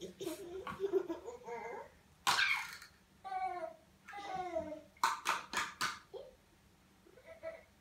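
Young children vocalising: babbling, squeals and laughter. Near the middle comes a run of four short, sharp bursts.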